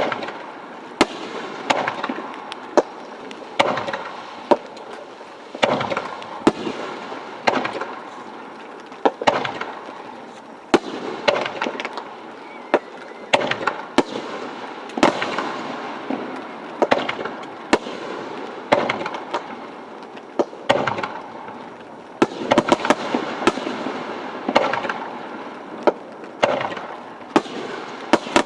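Aerial fireworks display: shells bursting in dozens of sharp bangs, clustered in quick runs at times, over a steady crackling hiss.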